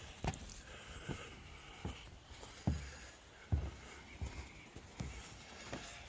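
Footsteps walking at an even pace, a dull thud about every 0.8 seconds.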